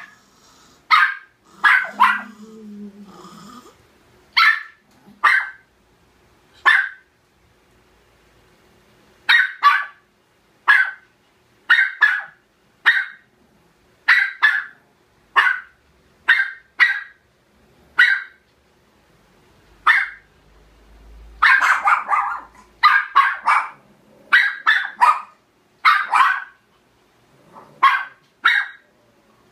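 Small dog barking over and over in short, sharp barks, some single and some in quick pairs, with a dense flurry a little past the middle and a brief low growl about two seconds in.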